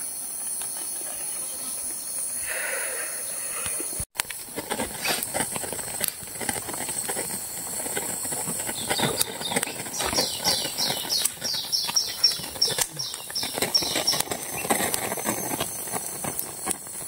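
Insects buzzing in a steady high-pitched chorus, which drops out abruptly about four seconds in. After that come irregular crackles and clicks, with a run of about a dozen quick falling chirps a little past the middle.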